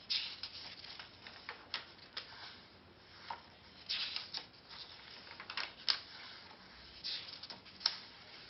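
Paper scrolls rustling and crackling as they are handled, in irregular crisp rustles with a few sharper crackles.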